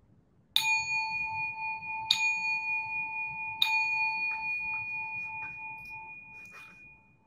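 A bell chime struck three times about a second and a half apart, each strike ringing on and slowly fading away. It signals that the session's time is coming to an end.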